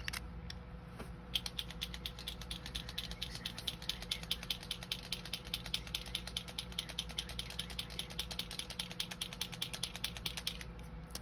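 Kuretake Zig acrylic paint marker clicking rapidly and evenly for about nine seconds as it is activated, the sign that the ink is being primed into the nib.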